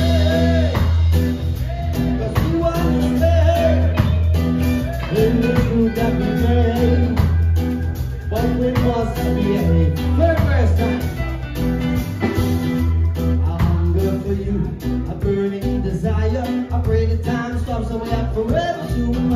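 Live band playing a groove with electric and acoustic guitars, drum kit and a strong steady bass line, with a singer's voice over it.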